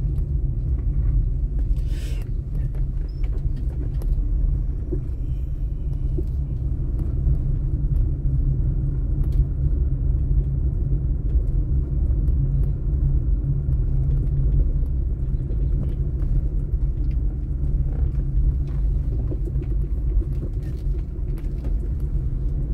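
Steady low rumble of a car driving slowly over a paving-stone street, heard from inside the cabin: engine and tyre noise.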